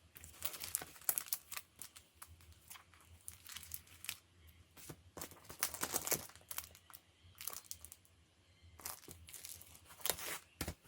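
Packaging being handled by hand: crinkling, rustling and tearing in several bursts with short pauses between.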